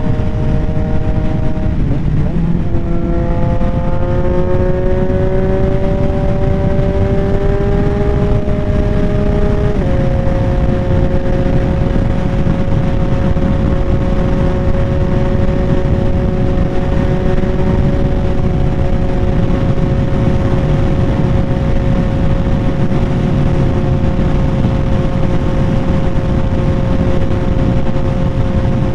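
2022 Yamaha XSR900's three-cylinder engine running loud through a Kelpi Custom Moto shorty exhaust while riding. It breaks off briefly about two seconds in, then rises in pitch for about seven seconds. Near the middle the tone changes abruptly and then holds steady at cruising speed.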